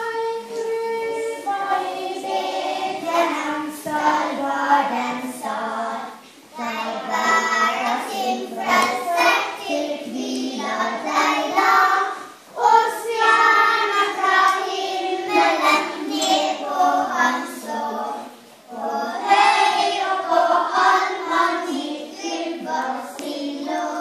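Children's choir singing a song, phrase by phrase with short breaths between lines.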